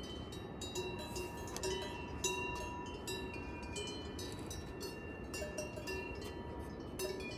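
Bells on grazing livestock clanking irregularly, several ringing metallic tones overlapping, over steady low background noise.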